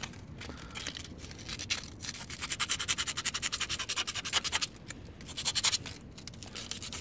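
Small piece of 150-grit sandpaper rubbed by hand over a scooter's painted metal frame tube in quick back-and-forth scratchy strokes, busiest from about two to five seconds in.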